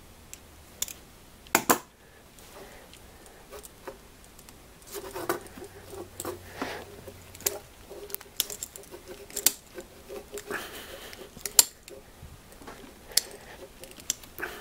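Scattered small metal clicks and ticks as a screwdriver turns the screw of a small worm-drive hose clamp to back it off. These are followed by handling of the clamp, brass fitting and rubber hose.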